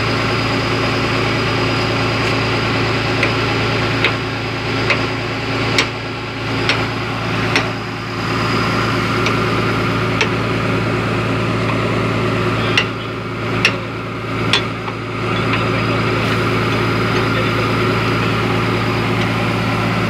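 Heavy diesel engines of an asphalt paver and a dump truck running steadily as the truck tips its asphalt into the paver's hopper. Two runs of sharp knocks, about one a second, come over the drone.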